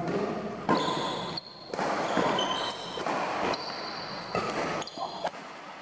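Doubles badminton rally: rackets strike the shuttlecock several times, and sneakers give short high squeaks on the court floor.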